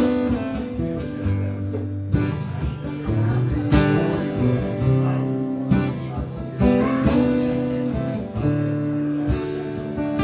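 Acoustic guitar strumming chords in a steady rhythm, the instrumental intro of a folk song before the vocals come in.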